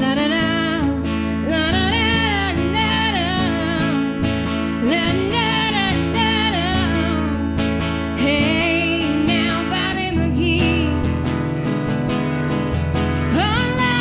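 A song sung to acoustic guitar accompaniment, the voice coming in phrases over steady strumming.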